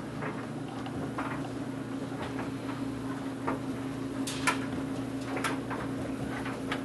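Steady electrical hum of a household appliance, with scattered light clicks and knocks, the sharpest about four and a half seconds in, from the tripod being handled and moved.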